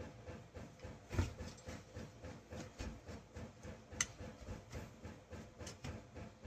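Faint, irregular clicks and knocks of chainsaw parts being handled and worked loose during a teardown, with a louder knock about a second in and a sharp click about four seconds in, over a faint steady hum.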